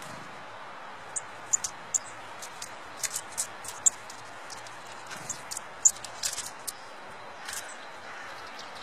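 Eurasian nuthatch at a hand of sunflower seeds: a scatter of short, sharp high ticks and chirps at irregular intervals, the loudest about six seconds in, over a steady hiss.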